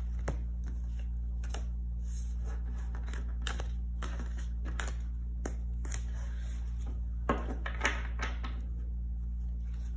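Tarot cards being gathered up off a table: scattered light clicks and slides of card against card and tabletop, with two sharper taps about seven and eight seconds in, over a steady low hum.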